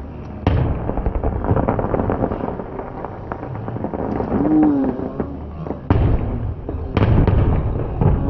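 Fireworks going off: a sharp bang about half a second in, then dense crackling, with two more bangs near six and seven seconds in. A brief low tone rises and falls about halfway through.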